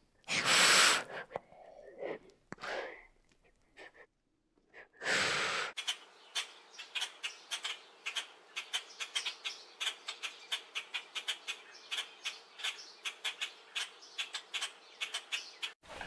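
Asian water monitor giving three loud, breathy hisses in the first six seconds. Then comes a long, steady run of rapid clicking calls, several a second, from an Oriental darter.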